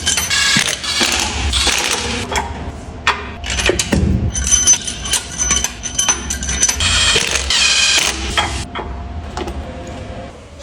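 Metal tools and engine parts clinking, rattling and ringing against each other in quick, irregular strikes.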